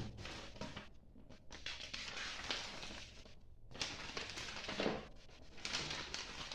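Rustling and handling noises of unpacking: packaging rustled and shifted in irregular bursts with small clicks, pausing briefly about halfway through.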